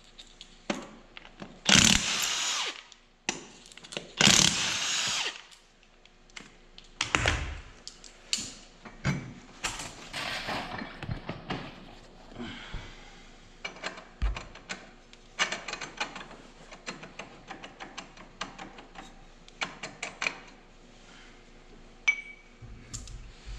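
Cordless impact wrench hammering lug nuts off an ATV wheel in two loud bursts of about a second and a half each, then a shorter burst. After that come many small clicks and knocks of the loosened nuts and the wheel being worked off the hub.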